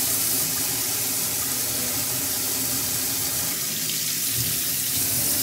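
Steady, even hiss with no break, strongest in the high range.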